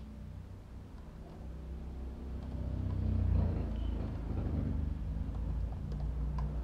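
A low rumble that swells about three seconds in and stays up, with a few faint clicks near the end.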